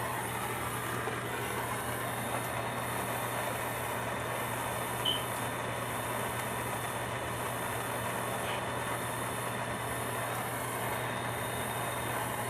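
Plumbing torch flame burning with a steady rushing hiss while heating a horizontal solder joint on copper pipe, with one brief faint high chirp about five seconds in.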